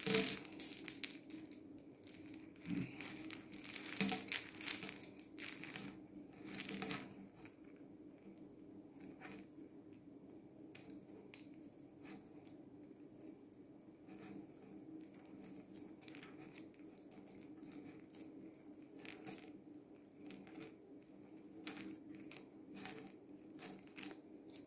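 A string of white ball fairy lights being handled and untangled: the small globes and wire clicking and rustling against each other and the tabletop in scattered little clicks. A steady low hum runs underneath.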